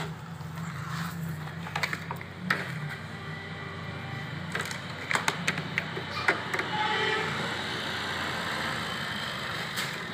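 Scattered clicks and knocks from hands handling the plastic housing and screw terminal block of a VFD, over a steady low hum. Faint pitched tones come in during the second half.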